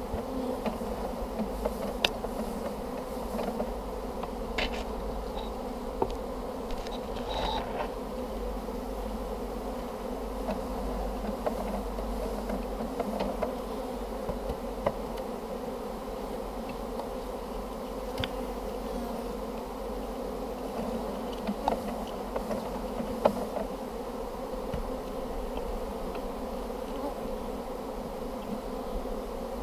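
Honey bees from an opened hive buzzing in a steady hum, with occasional sharp clicks and knocks as wooden hive frames are lifted and set down; the loudest knock comes about 23 seconds in.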